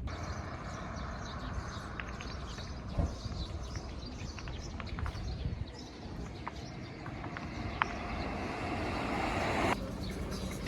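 Outdoor ambience: a steady wash of noise with a few brief, sharp high clicks or chirps scattered through it, and the background changing abruptly near the end.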